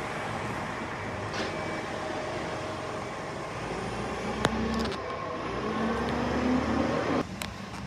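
Bucher garbage truck's diesel engine running as the truck moves slowly along the street, a steady hum with a low whine that climbs in pitch toward the end. The sound drops away suddenly just before the end.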